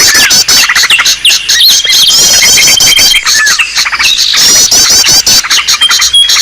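Bird-lure recording of small birds calling densely over one another: rapid chirps and fast high trills, with a long thin steady whistle held for about two seconds.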